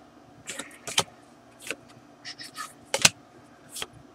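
Magic: The Gathering cards being handled: short swishes as cards slide off the stack, and sharp taps as they are set down, the loudest about three seconds in.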